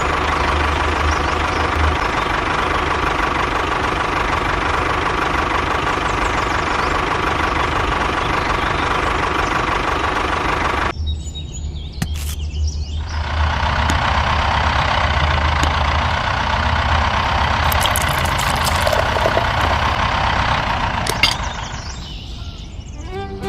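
A small motor running steadily with a low hum. It cuts off abruptly about eleven seconds in, then runs again from about two seconds later until near the end.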